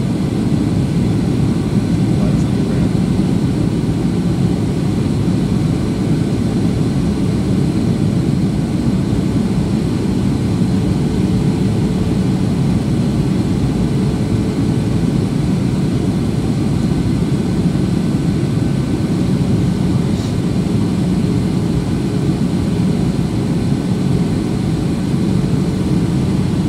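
Steady cabin noise inside a Boeing 737-800 on approach: the low drone of its CFM56 turbofan engines and the rush of air along the fuselage, heard from a window seat beside the wing, with a faint steady hum underneath.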